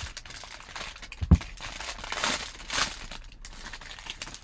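Foil wrapper of a baseball card pack crinkling and rustling as it is torn open and peeled off the stack of cards, with one soft thump about a second in.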